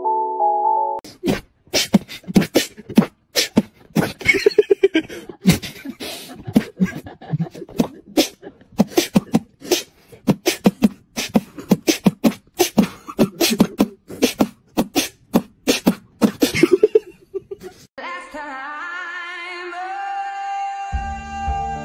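Beatboxing: rapid, irregular mouth clicks and pops mixed with short hummed notes. It starts about a second in, after the end of a plinking mallet tune, and gives way after about 17 seconds to music with long held melody notes.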